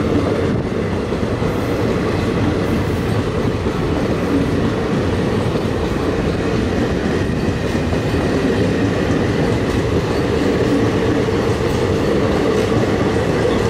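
Passenger coaches of an Indian Railways express train rolling past close by as it picks up speed after departure: a loud, steady rumble and clatter of wheels on the track.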